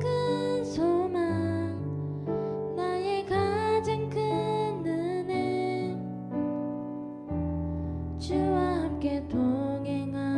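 Slow worship song: piano chords under a sung melody line, with a short pause in the melody partway through.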